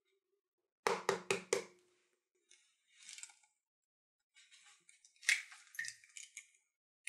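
Egg knocked four times in quick succession against the rim of a bowl, each knock with a short ring, followed by lighter crackling of the shell as it is broken open.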